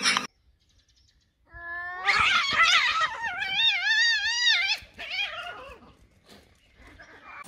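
A cat's long, drawn-out yowl that rises and then wavers up and down for about three seconds, starting about a second and a half in.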